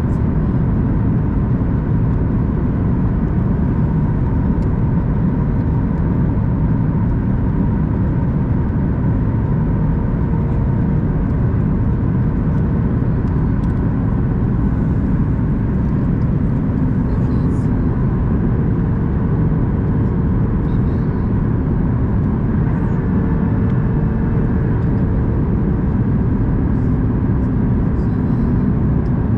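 Steady in-flight cabin noise of a Boeing 737 MAX 8: an even low rush of airflow and CFM LEAP-1B engine noise, with a faint steady hum over it.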